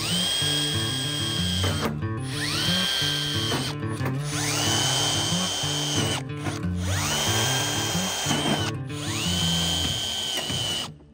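Cordless drill (Milwaukee M12) drilling holes in aircraft sheet-metal skin: several short runs, each spinning up to a steady high whine and winding down again.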